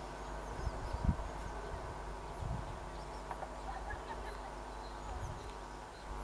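Birds chirping over a low steady hum, with a few low thumps of wind on the microphone.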